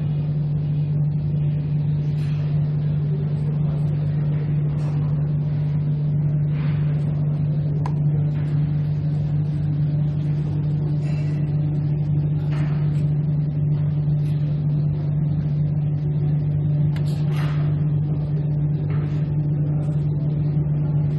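A steady low machine hum that holds one pitch throughout, with faint short clatters now and then.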